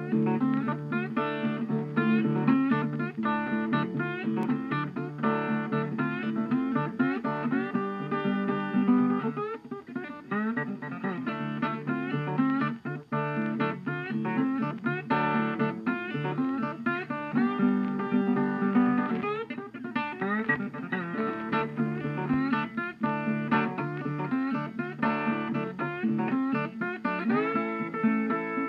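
Background music: acoustic guitar playing a plucked melody over a steady low accompaniment.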